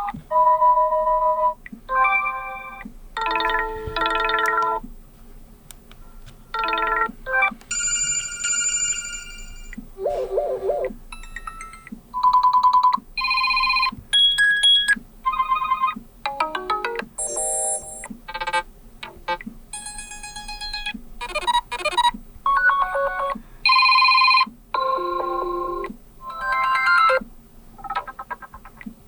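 The Sony Xperia 10 IV's built-in ringtones played one after another, each a short melodic snippet of chimes and synth tones that breaks off after a second or two before the next, different tune starts.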